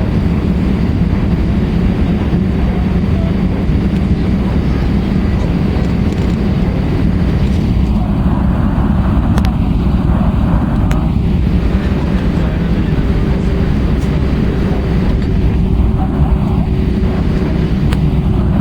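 Steady low rumble inside the cabin of an Airbus A320-232, from its engines and the air around the fuselage, holding an even level. A faint steady hum joins it about two-thirds of the way through.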